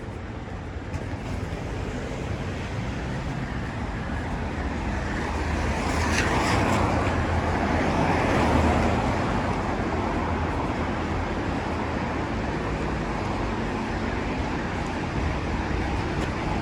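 Car passing on wet asphalt: the tyre hiss swells to a peak about eight seconds in and then eases off, over a steady low traffic rumble.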